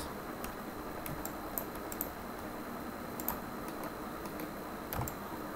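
Scattered, faint, single clicks of a computer mouse and keyboard, a dozen or so spread unevenly, over a steady background hiss.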